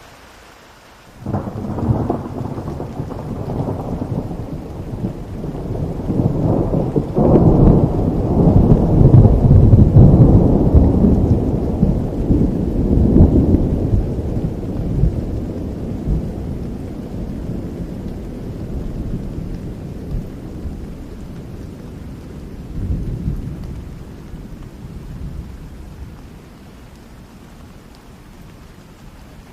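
A thunderclap breaks over steady rain about a second in, then rolls on as a long low rumble that swells through the middle and slowly dies away, with a smaller rumble near the end.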